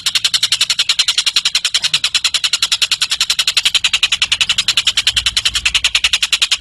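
Tengek cililin bird singing a long, unbroken rapid trill of high notes, about a dozen a second, steady in pace and loudness.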